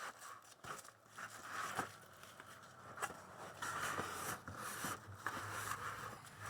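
Bubble wrap and packing material rustling and crinkling as it is unwrapped by hand, with scattered small clicks and scrapes.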